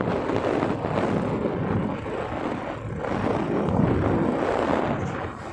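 Motorcycle riding along a road: the engine running under heavy wind rush on the microphone.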